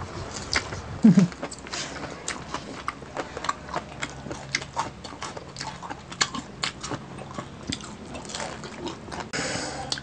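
Close-miked eating: irregular crisp crunching and crackling of deep-fried crispy pata pork skin, with chewing and mouth sounds. A brief low hum comes about a second in.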